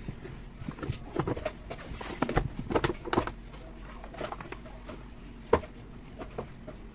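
Hard plastic top cover of a Lutos pressure washer being unclipped and lifted off its base: a cluster of clacks and scrapes in the first half, then a single sharp knock about five and a half seconds in.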